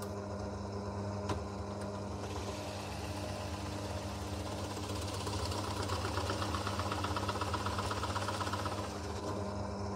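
Pillar drill's motor running steadily while a 35 mm Forstner bit is fed down into plywood, deepening a concealed-hinge cup hole. The cutting noise comes in about two seconds in, grows louder with a fast chatter, and stops shortly before the end as the bit is eased off.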